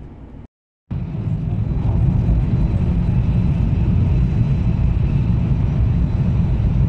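Tohoku Shinkansen (Yamabiko) bullet train running, heard from inside the passenger cabin as a loud, steady low rumble with a faint high steady whine on top. The sound cuts out briefly less than a second in.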